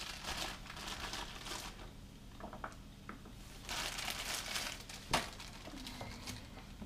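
Crinkling and rustling from things being handled close to the microphone, in two spells of a second or so each, with one sharp click a little after the middle.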